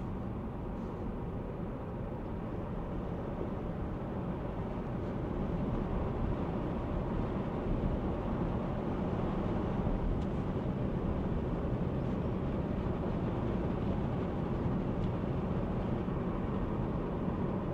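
Steady road and tyre noise inside the cabin of a Tesla Model Y Performance on the move, a low rumble with no engine note. It grows a little louder about six seconds in as the car picks up speed.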